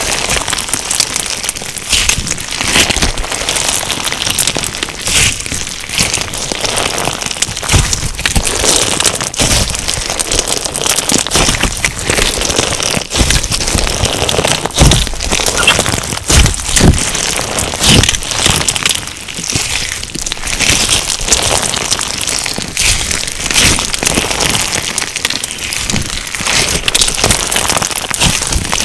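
Crunch slime full of tiny sugar beads being kneaded and pressed by hand, the beads giving a dense, continuous crackle of small pops, with a few low squelching presses now and then.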